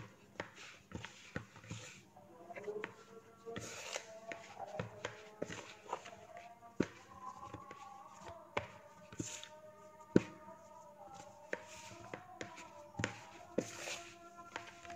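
Hands kneading warm tapioca-starch (aci) dough in a plastic bowl: irregular soft squishes and taps of dough and fingers against the bowl. Faint wavering tones run underneath.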